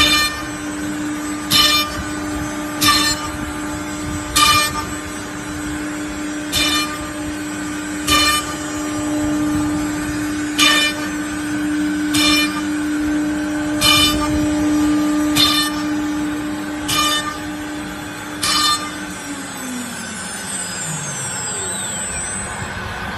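CNC router spindle running with a steady whine, broken by short harsh bursts about every second and a half. About 19 seconds in, the spindle winds down and its pitch falls.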